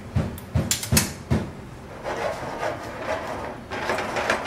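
A metal sauté pan of pasta in cream sauce is jerked back and forth on a gas range's iron grate. It knocks in a quick even run of four thumps, about two and a half a second, then gives way to a softer continuous scraping and rattling as the pan keeps moving.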